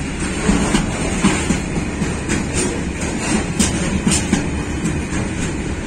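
Freight wagons of a long mine train rolling past close by: a steady heavy rumble of steel wheels on rail, broken by irregular clacks and knocks a couple of times a second as the wheels cross the rail joints.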